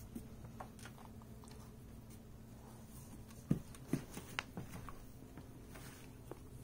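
Quiet clicks and taps of a dog moving on a hardwood floor and playfully mouthing a person's hand, with a few sharper knocks about halfway through.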